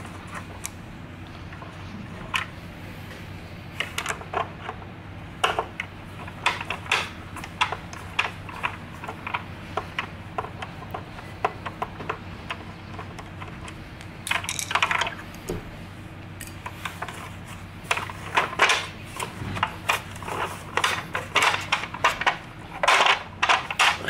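Screwdriver turning out the Phillips screws that hold the motor down in a Hoover upright vacuum: a string of small, irregular clicks and scrapes. Near the end the plastic motor housing knocks and rattles more densely as it is worked loose.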